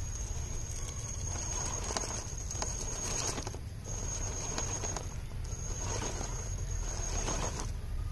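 1/10-scale RC rock crawler climbing a steep boulder: the electric motor and drivetrain give a steady high whine that cuts out briefly a few times as the throttle eases, while the JConcepts Megalithic tyres scrabble and tick against the rock in two stretches.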